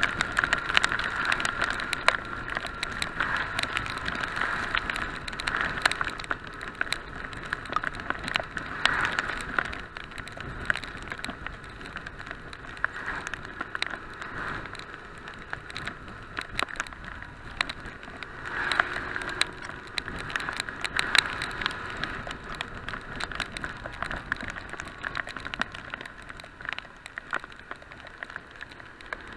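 Heavy rain drops striking a handlebar-mounted action camera's housing on a moving motorcycle, heard as many sharp irregular ticks over a muffled, steady ride noise.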